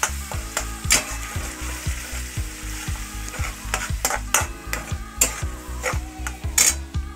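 A steel spatula stirs and scrapes a paste-like filling of onion paste, ginger paste and pointed-gourd pulp as it sizzles in hot oil in a kadai. Now and then there is a sharp scrape of metal on the pan. Background music with a steady low beat runs underneath.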